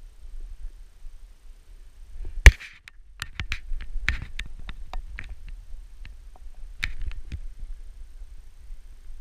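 Wind rumbling on a head-mounted camera's microphone. About two and a half seconds in there is one sharp, loud knock, followed by a few seconds of irregular crunching clicks.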